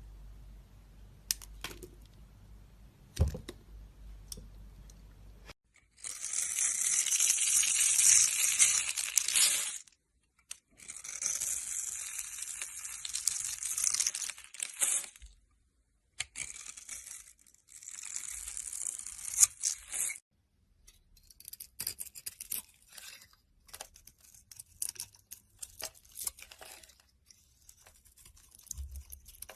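A blade cutting through a bar of soap in three long, scraping strokes. These are followed by a run of small crackles and clicks as the soap crumbles.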